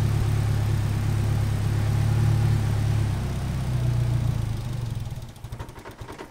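Nissan SR20 inline-four engine idling with a strong low hum that wavers, then sputtering unevenly and dying out near the end. With the fuel pump fuse pulled, the engine is stalling as it runs out of fuel pressure.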